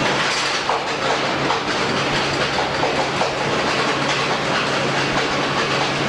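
Sawmill log conveyor and machinery running: a continuous clatter of chains and steel under a steady low motor hum as a large log rides the deck.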